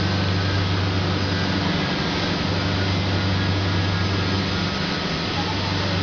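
Steel melting furnace running while molten steel is poured: a steady low electrical hum with an even hiss over it.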